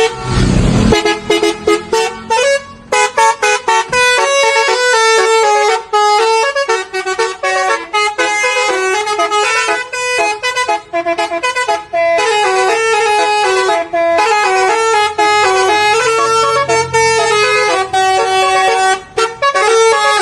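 Bus's basuri telolet horn playing a tune: a run of tuneful horn notes stepping up and down in pitch, choppy and broken at first, then in longer phrases. A short low burst of noise opens it.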